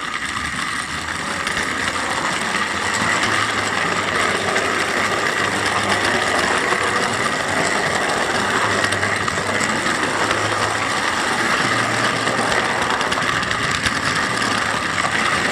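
Model railway train running a lap of the track: the locomotive's electric motor and gears give a steady whirring with a constant hum, along with wheels running on the rails.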